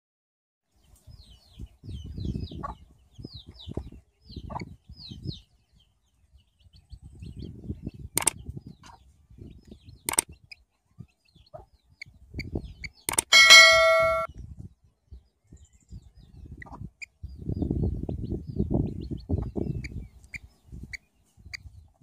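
Short high bird chirps and spells of low muffled noise, broken by sharp clicks and then the ringing bell ding of a subscribe-button sound effect about thirteen seconds in, which is the loudest sound.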